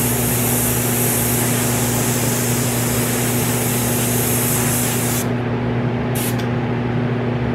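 Airbrush spraying a water-based bluish-white paint mix in a steady hiss that cuts off suddenly about five seconds in, then one brief spurt about a second later. A steady low hum runs underneath throughout.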